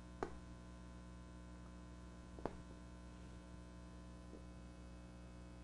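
Janggi pieces clicking as they are set down on a demonstration board: two sharp clicks, about a quarter second in and about two and a half seconds in, and a fainter one later. A steady electrical hum runs underneath.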